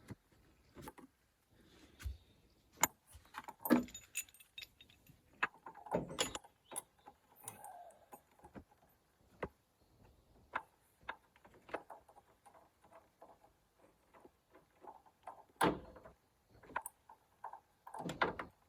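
Scattered metallic clicks, clinks and knocks of hand tools and metal parts being handled while working on a car's wiper linkage, with a few louder clatters.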